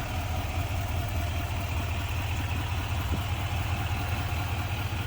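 Diesel pickup engine, the 6.6-litre Duramax V8 of a GMC Sierra 2500, idling with a steady low rumble.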